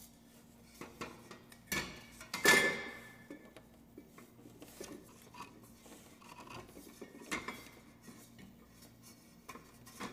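Metal housing of a Fanimation Aire Drop ceiling fan clinking and scraping as it is worked down into place over the motor, with one loud ringing clank about two and a half seconds in and smaller knocks around it.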